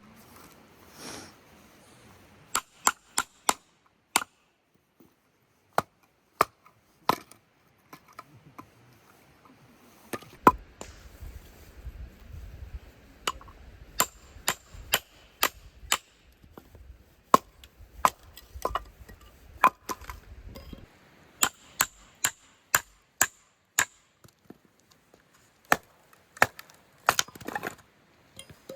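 Firewood being chopped or split: many sharp, irregularly spaced knocks of a blade striking wood, some in quick pairs. A faint low rumble runs through the middle stretch.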